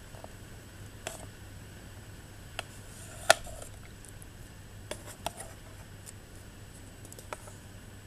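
Sharp, scattered clicks and taps on a shallow plastic tub as a red-eared slider turtle feeds on pellets in it, its beak, claws and shell knocking against the plastic, with one louder knock about a third of the way in. A low steady hum runs underneath.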